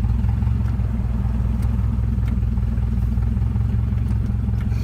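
Honda K24 four-cylinder engine idling steadily, with an even low pulse.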